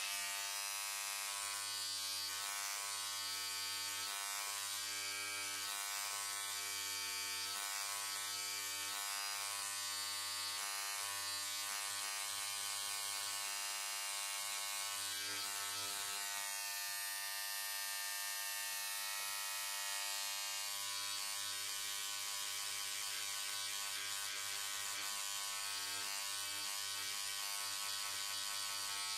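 Fossil-preparation scribe, a vibrating needle pen, buzzing steadily as its tip chips away rock matrix from around a trilobite. It starts abruptly and holds one even pitch.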